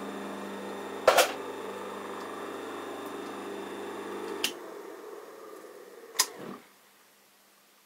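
Rebuilt capacitor electric motor running with a steady hum. There is a sharp click about a second in. About four and a half seconds in it is switched off with a click, and it winds down quickly, falling in pitch, with another click as it slows, then stops.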